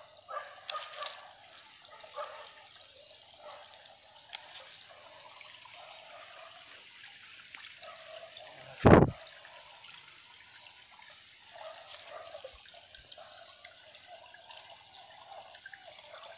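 Shallow muddy forest stream trickling, with a single loud thump about nine seconds in.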